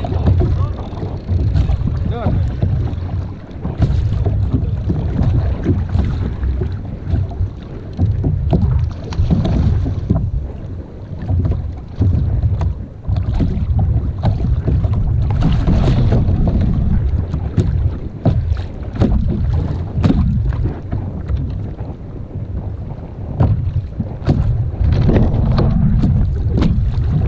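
Wind buffeting a camera microphone at sea: a loud, uneven low rumble with scattered short clicks and knocks.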